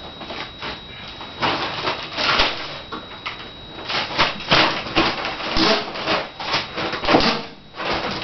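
Irregular scraping, rustling and knocking of packaging being handled and pulled away as the washing machine is unboxed.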